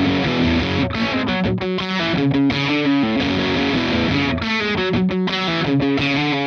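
Electric guitar played through the Poison Noises Crook V4 overdrive pedal. It plays an overdriven riff of chords and single notes with a few brief stops, while the pedal's Lay Low bass control is being turned.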